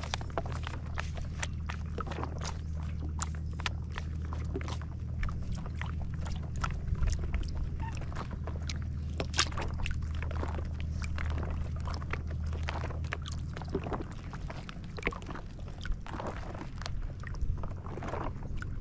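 A small boat's engine running with a steady low hum, with water splashing and sharp knocks over it. The hum becomes uneven about fourteen seconds in.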